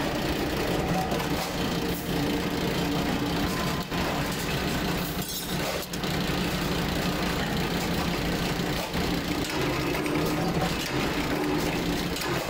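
Metal-forming press machinery running with a steady mechanical hum, its drive running continuously while steel blanks are loaded into the die.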